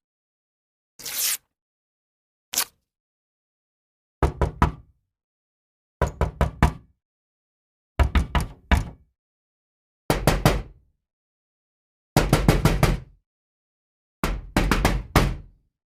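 Knocking sound effect: quick knocks in groups of three to five, one group about every two seconds, after a short whoosh and a click.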